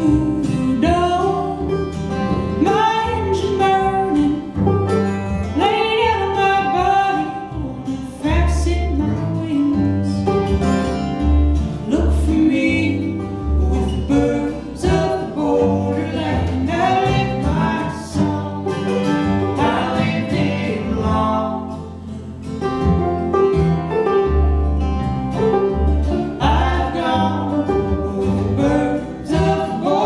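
Live acoustic string band playing a song on banjo, acoustic guitar and upright bass, with a woman singing and a man singing harmony.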